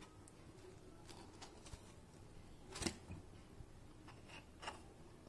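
Small kitchen knife paring the skin off a white pumpkin (ash gourd): faint scraping with a few soft clicks, the sharpest one about three seconds in.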